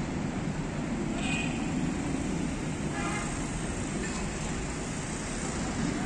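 Steady road traffic noise from vehicles running on a busy highway, a continuous low rumble with a brief pitched tone, like a short horn, about three seconds in.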